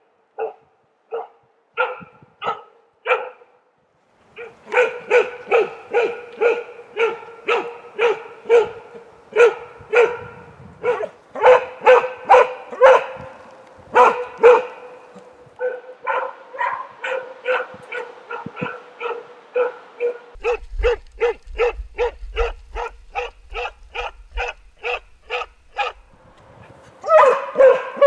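Young Jämthund (Swedish elkhound) barking steadily at a moose through an enclosure fence: a moose dog's bay at its quarry, in a long run of sharp barks at about two to three a second, with one short pause about four seconds in.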